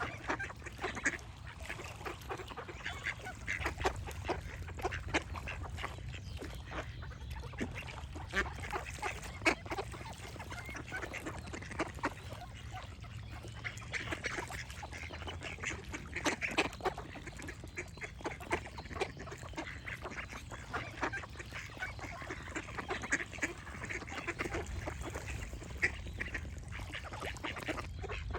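Ducks quacking, many short calls overlapping one after another throughout, over a low steady background noise.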